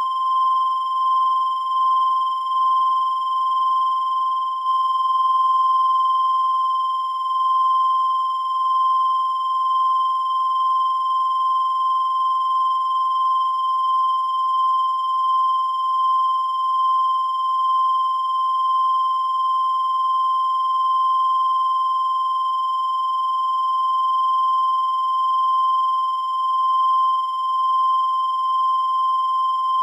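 A continuous high-pitched electronic tone, a steady whine near 1 kHz with fainter higher overtones, wavering slightly in loudness without a break.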